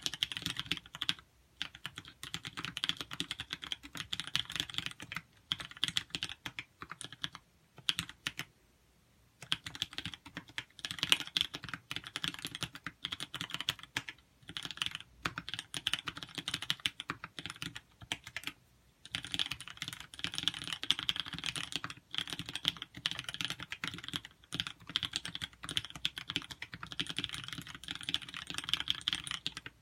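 Custom TX84 mechanical keyboard with Holy Chickies switches being typed on: fast, continuous key clacks, stopping briefly a few times.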